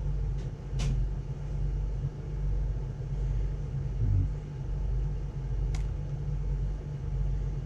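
Two small sharp clicks, from buttons being pressed on a dash camera, over a steady low background rumble.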